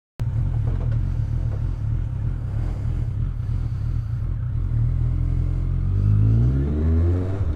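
Motorcycle engine running through a newly fitted Beowulf aftermarket exhaust can, with a steady low exhaust note. About five seconds in the note rises in pitch for a couple of seconds as the throttle is opened.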